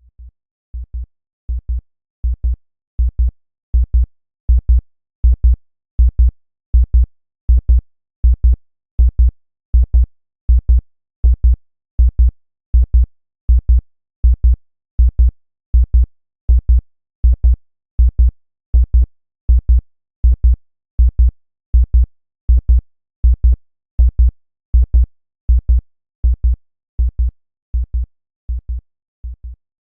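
Synthesized heartbeat: evenly spaced pairs of short, deep thumps at a steady 80 beats a minute. They fade in over the first few seconds and grow a little quieter near the end.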